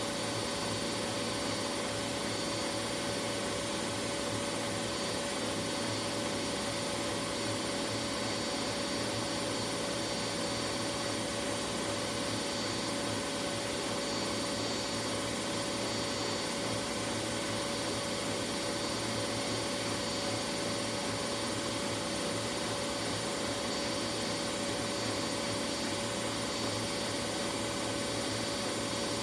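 Whirlpool AWS 71200 front-loading washing machine in its final spin: the drum spinning at high speed with a steady motor whine over an even rushing hum, holding constant throughout.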